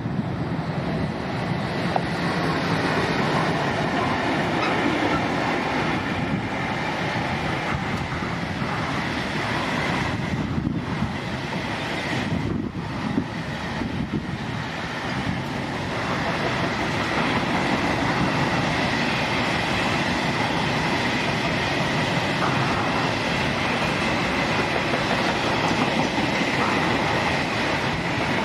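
Freight train hauled by a Siemens Vectron class 193 electric locomotive passing, its wagons rolling by on the rails in a loud, steady, continuous rumble.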